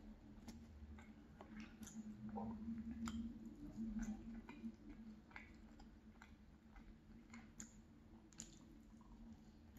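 Close-miked chewing of roasted potato cubes dipped in a creamy garlic ranch dip: soft, wet mouth sounds with many small scattered clicks, loudest about three to four seconds in.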